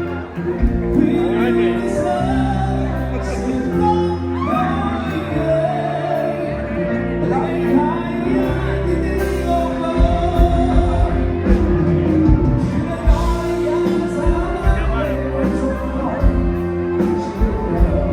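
A live band in a bar playing a pop song through the PA: a singer over bass and keyboard chords, with a steady drum beat coming in about ten seconds in.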